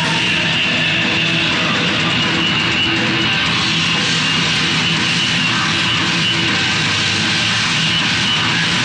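Heavy metal band playing live: distorted electric guitar, bass and drums in a dense, steady wall of sound from an old camcorder tape, with no singing.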